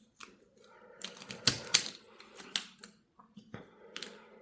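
Plastic pieces of a magnetic HuDongCube Light 3x3 speed cube being fitted and snapped back together by hand: a run of irregular sharp clicks and clacks.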